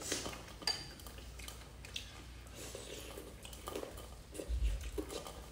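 Two people eating: quiet chewing and mouth sounds with scattered faint clicks of cutlery on bowls, and a couple of soft low knocks near the end.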